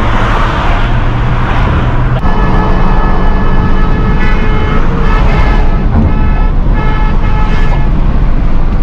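Road and wind noise in a Hyundai i20's cabin at highway speed, about 125 km/h. About two seconds in, a vehicle horn sounds a long blast and then a run of shorter toots.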